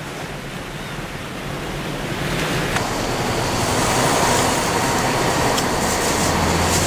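A steady rushing noise, swelling louder about two seconds in, with a higher hiss joining a second or so later.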